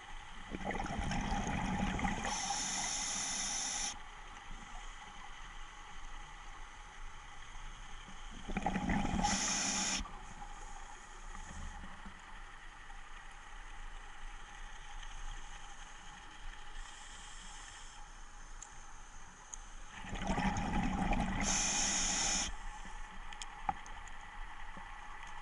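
Scuba diver breathing through a regulator underwater: three breaths roughly ten seconds apart. Each is a rush of exhaled bubbles that ends in a higher hiss from the regulator.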